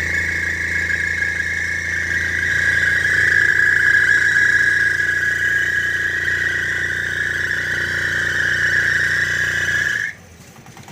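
Hero Maestro Edge 125 scooter engine running under throttle with the brake held, giving a loud, steady high squeal from the CVT clutch side that sinks slightly in pitch and cuts off suddenly about ten seconds in. The drive belt has gone loose and is rubbing.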